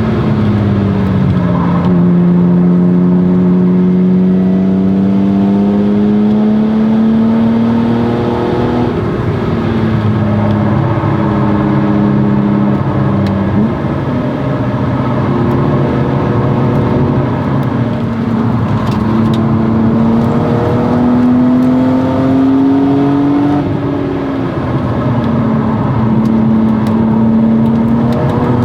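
1997 BMW E36 M3's straight-six with a Stromung cat-back exhaust running hard under load. The engine note climbs slowly and then drops or steps several times as the revs rise and fall.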